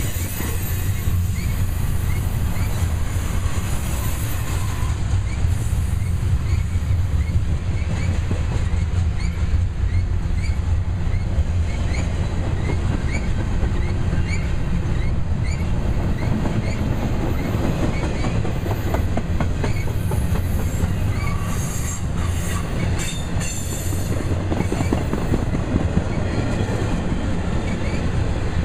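Loaded double-stack container well cars rolling past: a steady heavy rumble of steel wheels on the rails with clatter from the trucks. A faint high chirp, typical of wheel flange squeal, repeats about once a second through the first half.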